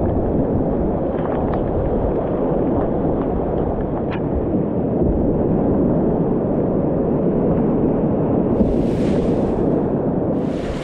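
Whitewater rapids rushing in a steady, muffled rumble, heard from a helmet-mounted action camera on a kayaker, with a hissing splash about nine seconds in and another near the end.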